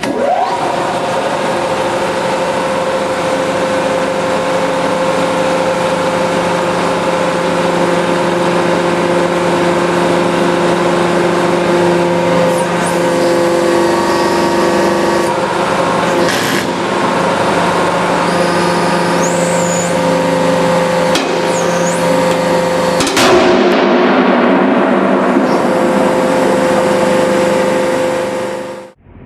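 A 500-ton hydraulic press's pump runs with a steady, loud hum while the ram crushes a stack of plywood. Four sharp cracks come as the compressed plywood bursts apart, the last and loudest about 23 seconds in. The sound cuts off suddenly near the end.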